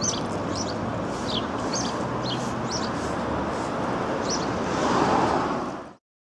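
Outdoor street ambience: a steady rush of traffic and wind noise with a small bird chirping repeatedly. The noise swells a little about five seconds in, then the sound cuts off abruptly.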